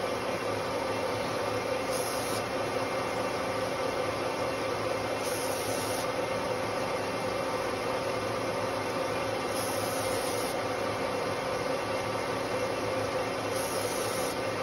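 Metal lathe running steadily, spinning a large electric motor armature as its copper commutator is turned with a carbide insert. A steady mechanical hum, with four short spells of brighter hiss.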